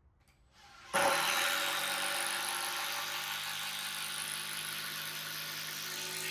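Cordless drill driving a long screw into a timber sleeper: the motor starts suddenly, runs steadily for about five seconds with its pitch sinking slightly under load, then stops abruptly.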